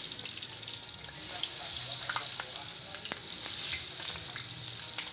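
Eggplant frying in hot oil in a pan: a steady sizzle with scattered crackles, growing louder a couple of seconds in.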